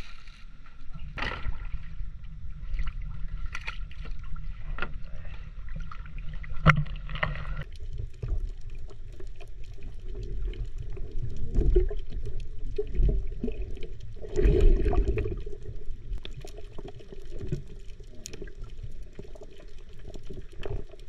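A plastic bag of shells being handled, with sharp clicks and rustling; about a third of the way in the sound turns dull and muffled, and the rest is water sloshing, rumbling and knocking picked up by a camera under the water.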